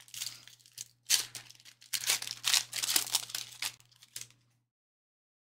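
Trading card pack wrappers crinkling and tearing in irregular bursts as packs are ripped open, with a steady low hum beneath. The sound cuts off to dead silence about four and a half seconds in.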